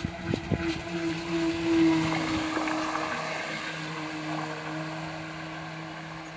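Radio-controlled fishing bait boat's electric motors whining steadily as it speeds past close by, with water spray hissing off the hull; loudest about two seconds in, then fading as the boat moves away.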